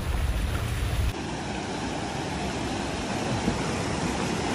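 Low drone of a car driving along a rough, flooded road, heard from inside, for about the first second. Then a sudden change to a shallow mountain stream rushing over rocks: a steady rush of water.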